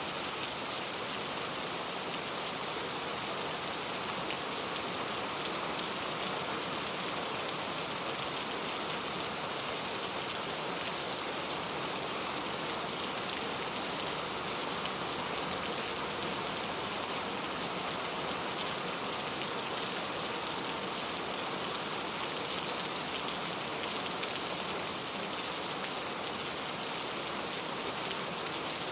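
Steady rain falling, a continuous even patter of drops with no change in strength.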